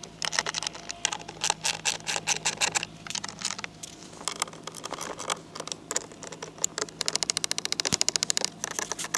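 Ratchet with a socket backing out the 7 mm screws of a dashboard housing: scattered clicks and scrapes, then a fast, even run of ratchet clicks about seven seconds in.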